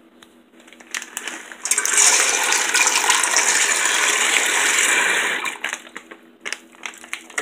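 Dried black-eyed peas poured from their bag into an empty metal pot, a dense rattling shower of beans hitting the metal. It builds about a second in, holds for about four seconds, then thins to a few scattered clicks as the last beans fall.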